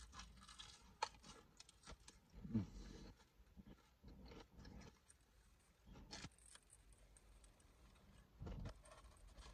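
Faint chewing of a bite of crispy fried chicken: scattered small crunches, clicks and mouth noises, with a short low hum about two and a half seconds in.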